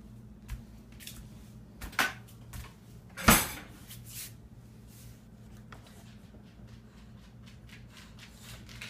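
Knocks and clinks of a stainless steel dog food bowl on a hardwood floor, the loudest a little over three seconds in, followed by lighter ticks. A steady low hum runs underneath.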